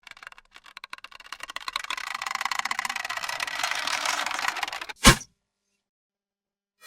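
A bow being drawn: a creaking run of clicks that starts sparse and thickens over about five seconds, then the string is released with one short, sharp snap.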